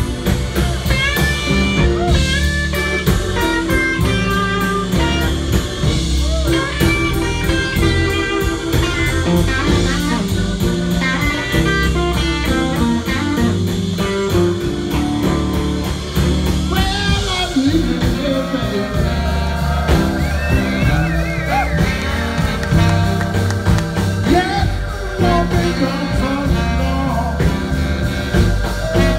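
Live blues band playing a slow blues, led by an electric guitar solo with bent notes over a steady drum beat.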